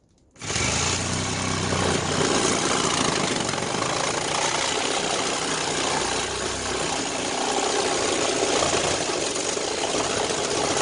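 Handheld electric power saw starting about half a second in and cutting steadily through a thick old pipe, the motor's hum under the noise of the cut.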